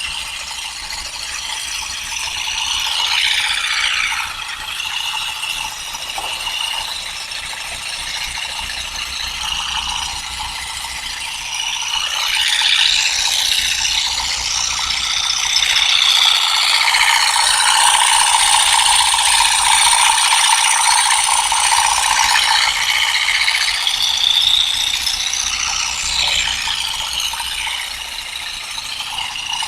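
An olive harvesting tool with plastic nylon tines working through olive branches, making a continuous mechanical rattle. It swells about twelve seconds in and is loudest in the second half.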